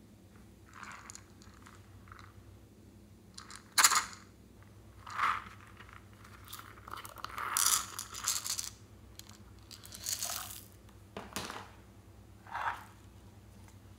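Small plastic containers being handled: a few sharp clicks of caps and lids, and a cluster of rattles about halfway through as small beads are shaken out of a plastic bottle onto the slime.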